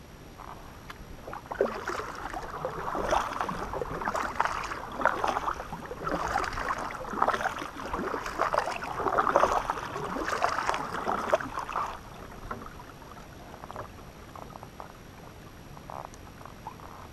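Kayak paddle strokes dipping and splashing in the water, a surge every second or so, stopping about twelve seconds in, after which only faint water noise remains.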